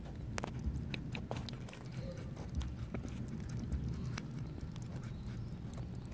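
Kittens eating food from a dish: irregular small clicks and taps of chewing and licking over a low steady rumble.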